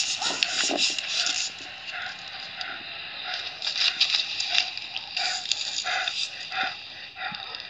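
An Alabai (Central Asian Shepherd dog) panting close to the microphone, a hissy run of uneven breaths, at times about three a second, mixed with rustling of fur against the phone.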